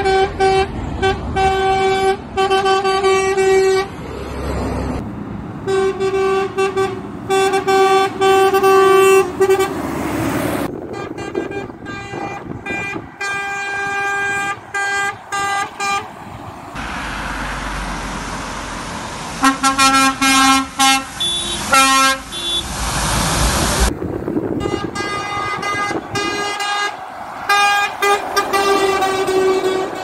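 Lorry horns sounded by passing trucks, in a run of short clips: repeated toots and longer blasts, one deeper-pitched horn about two-thirds of the way through, with a short stretch of plain traffic and engine noise between clips.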